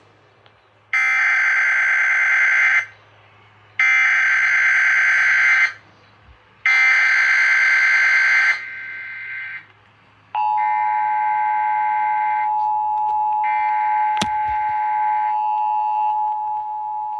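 Emergency Alert System alert opening: three bursts of rapid warbling SAME header data, each about two seconds long, then the steady two-tone EAS attention signal starting about ten seconds in. Fainter repeats of the header bursts overlap the attention tone, with a single click near fourteen seconds. It heads a relayed severe thunderstorm watch.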